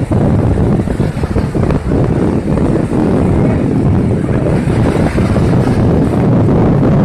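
Wind buffeting the phone's microphone with a loud, steady rumble, over the wash of small waves breaking on the shore.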